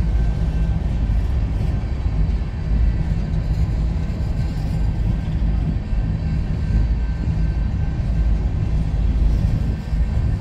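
Coal train's hopper cars rolling slowly past: a steady, even rumble of steel wheels on the rails.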